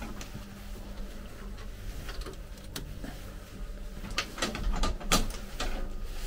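Knocks and clicks of doors and latches being worked inside a railway passenger car, with several in quick succession about four to five seconds in, over a steady low electrical hum.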